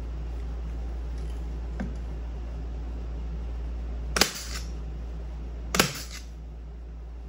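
Pneumatic upholstery stapler firing twice, about a second and a half apart, driving staples through a canvas seat cover into a wooden seat frame. Each shot is a sharp snap with a short hiss of air after it, over a steady low hum.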